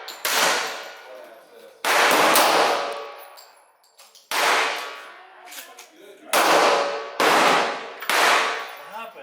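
.40 calibre Glock pistol fired six times at an uneven pace, the last three shots coming quicker, each shot followed by a long ringing decay.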